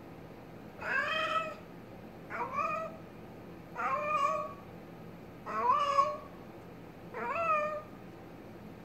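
Domestic cat meowing five times, about one and a half seconds apart, each meow a short call that rises and then falls in pitch.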